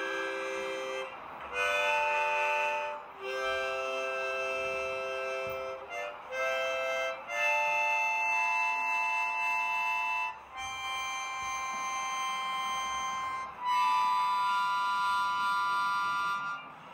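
Background music of slow, held chords that change every second or two and climb higher toward the end.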